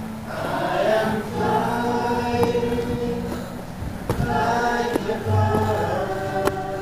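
Choral music: several voices singing held, slowly changing chords.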